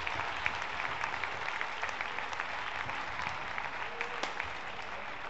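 Crowd clapping and applauding steadily during a badminton rally, with a sharp racket strike on the shuttlecock about four seconds in.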